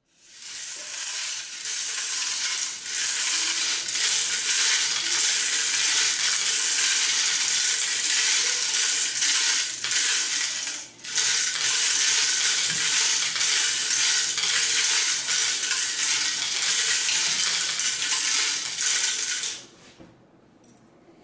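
Small black LEGO pieces rattling inside the turning plastic mixer drum of a LEGO Technic 42112 Concrete Mixer Truck and clattering down its chute into a clear bowl, in a continuous stream. There is a short break about eleven seconds in, and the rattling stops shortly before the end.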